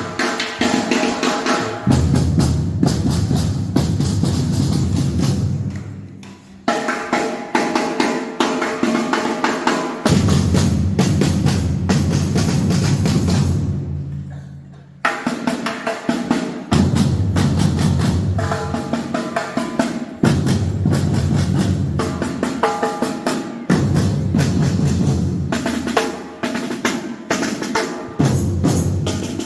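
Batucada drum band playing a fast, driving rhythm on bass drums and snare drums. The deep bass-drum part drops out and comes back several times. The sound breaks off and restarts about 6.5 and 15 seconds in.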